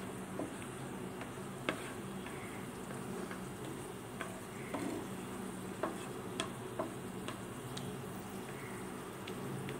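Cashew nuts sizzling softly as they fry in ghee in a nonstick pan, stirred with a wooden spatula. Light clicks and taps come every second or so as the spatula scrapes and knocks against the pan. The cashews are being fried over a medium flame toward golden brown.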